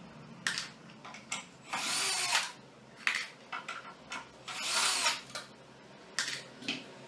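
Power screwdriver backing out screws on a washer-dryer's drying-motor housing: two short runs about three seconds apart, each a whine that rises and falls, with clicks and knocks of handling in between.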